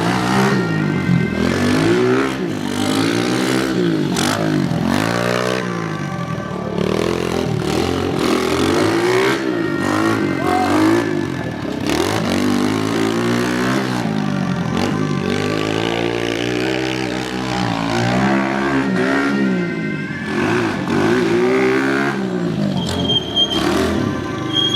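Small pit bike engine revving up and falling back again and again as the rider works the throttle through the obstacle course, the pitch climbing and dropping every second or two.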